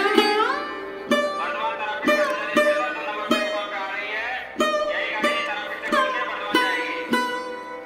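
Background instrumental music: a plucked string melody with notes that slide in pitch, in the style of a sitar, over a steady drone.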